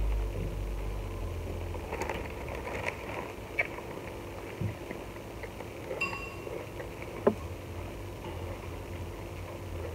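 Scattered light clicks and knocks over a low steady room hum, the sharpest knock a little past the middle.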